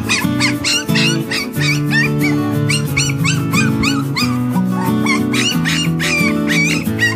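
Puppies yelping and whimpering in quick, high-pitched cries, several a second, over background music with held notes.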